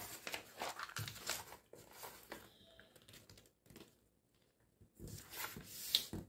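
Brown pattern paper rustling and crinkling as it is handled and folded by hand, in irregular bursts with a short pause about four seconds in.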